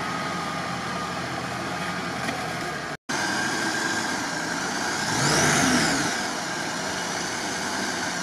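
Off-road 4x4 engine running steadily, broken by an edit about three seconds in. Afterwards it runs on and gives one rev about five seconds in that rises and falls.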